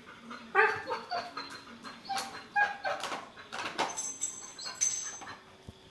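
A dog barking and whining in a string of short calls at a vacuum cleaner, about seven in four seconds, stopping shortly before the end.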